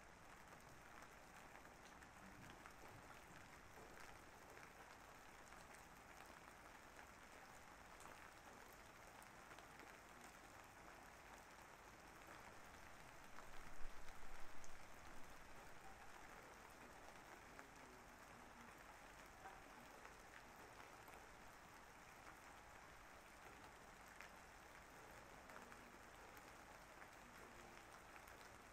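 Faint, steady rain falling, an even hiss with scattered drops. About halfway through, a louder stretch of sound lasts about two seconds.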